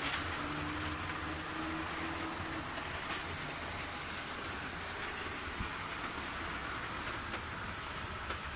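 Hornby OO gauge model train running on the layout's track: a steady running noise of motor and wheels.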